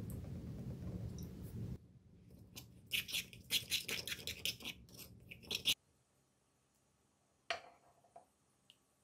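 Metal spoon scraping and stirring against the inside of a marble mortar while mixing a wet paste: a fast run of sharp scrapes lasting about four seconds. It opens over a low rumbling noise, and after a pause comes a single knock.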